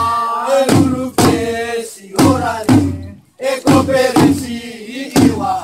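Men singing a Maku-Maku dance chant in short phrases, with strokes of a hand drum (tifa) opening the phrases, roughly one to two beats a second.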